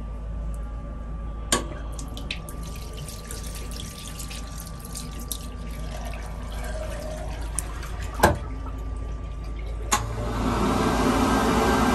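An automatic sensor tap runs water into a small washbasin, with a few sharp clicks from the dispenser and buttons. About ten seconds in, a push-button Airdri Quarto hand dryer clicks on and starts blowing with a loud, even rush, the loudest sound here.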